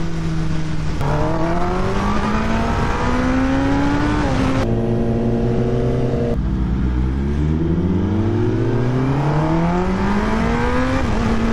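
Kawasaki ZX-10R's inline-four engine heard from the rider's seat, its pitch climbing as it pulls through the revs, holding steady for a couple of seconds in the middle, then climbing again. Wind rush runs underneath.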